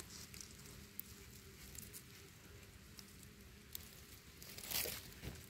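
Faint crackle and rustle of dry leaf litter and loose soil as a gloved hand pulls small mushrooms from the forest floor, with a few small clicks and a slightly louder rustle near the end.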